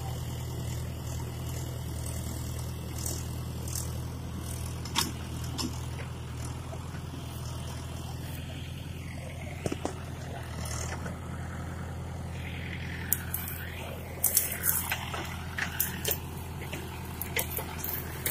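Tractor diesel engine driving a mounted backhoe, running steadily under load, with sharp metallic knocks and clanks from the digging that come more often in the second half.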